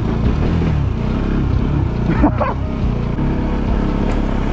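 Motorcycle engine running steadily at low revs. A brief voice cuts in a little over two seconds in.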